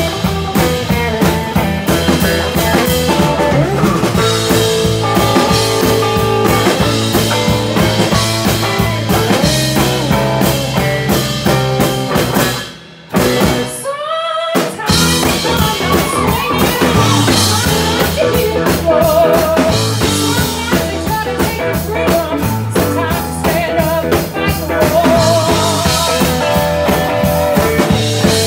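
Live rock band playing: electric and acoustic guitars over a drum kit. The sound cuts out for about two seconds midway, then the band comes back in.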